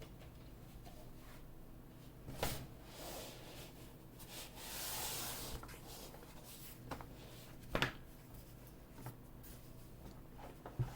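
A few scattered keystrokes on a keyboard with lubed and filmed Everglide Sakura Pink linear switches, the two loudest about two and a half and eight seconds in, with soft rubbing sounds between them.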